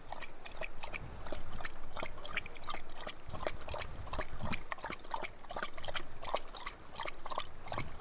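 Two-stroke fuel mix, petrol and two-stroke oil, poured from a container into a minibike's fuel tank, glugging with irregular bubbly pops.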